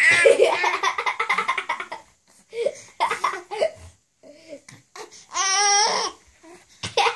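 Baby girl laughing in rapid, breathy bursts as an adult tickles her chest, with one long high squeal a little after halfway.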